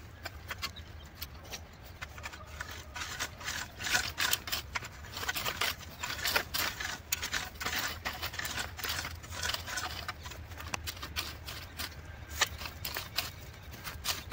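Long-handled iron rake dragged and chopped through dry, cloddy soil: irregular scrapes and crunches with small knocks of clods, several a second.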